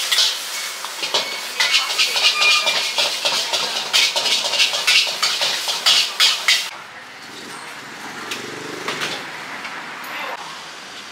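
Metal spatulas rapidly clanking and scraping against steel woks as pad Thai is stir-fried over a sizzling hiss. The clatter stops abruptly about two-thirds of the way through, leaving quieter background noise.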